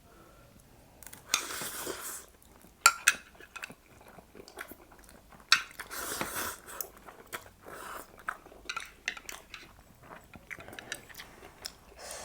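Close-miked eating of instant ramen noodles: chewing and biting with sharp clicks of cutlery against the bowl, and two long hissing slurps, one about a second in and one about six seconds in.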